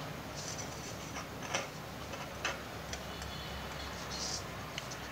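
A few light, sharp clicks and taps, the two loudest about a second and a half and two and a half seconds in, with a couple of brief soft hisses, as a small potentiometer, its wires and a soldering iron are handled on a workbench.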